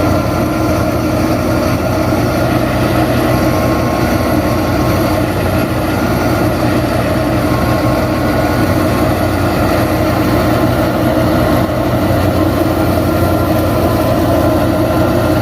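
Tractor engine idling steadily, an even low hum with no change in speed.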